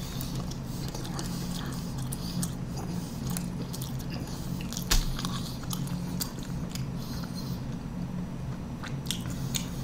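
Someone biting into and chewing a beef burrito with cheese, rice and jalapeño sauce: soft wet mouth clicks and squelches over a steady low hum, with one louder thump about halfway through.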